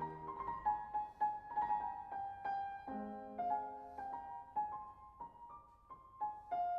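Background piano music: a melody of single struck notes, with lower accompanying notes coming in about three seconds in.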